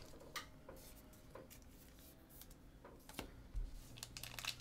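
Faint, scattered light clicks and a soft thump over quiet room tone: small handling noises at a desk.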